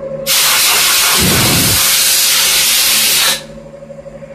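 A loud burst of compressed air hissing for about three seconds, starting and stopping sharply, with a brief low rumble in the middle; it blows coolant off the freshly milled part on the CNC mill. A steady machine hum runs beneath it.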